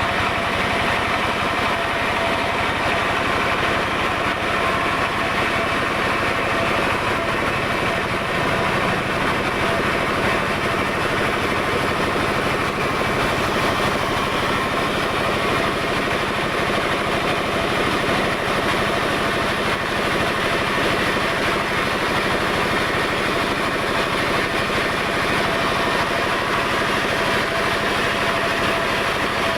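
Sawmill machinery running steadily: an engine-driven log saw, a continuous mechanical drone with no pauses or changes in level.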